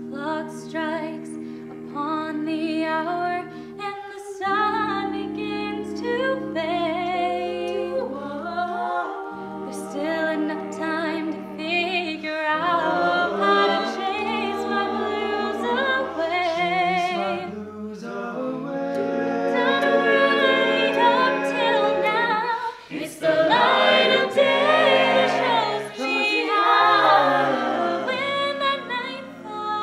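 Mixed-voice collegiate a cappella group singing in close harmony, with long held low bass notes under moving upper voices.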